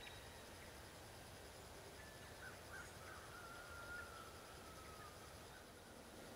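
Near silence with faint bird calls: a few short chirps about two and a half seconds in, then one long whistle that falls slightly in pitch over about two seconds.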